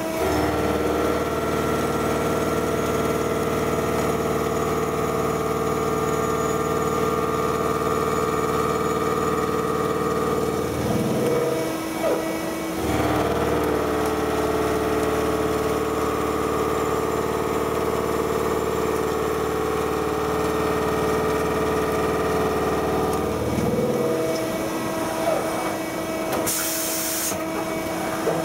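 Makino L2 vertical machining center face milling ductile cast iron (FCD450) with a 50 mm face mill: a steady spindle and cutting tone in two long passes, broken off for about two seconds midway. Near the end the cutting tone stops and the machine moves on, with a brief high hiss.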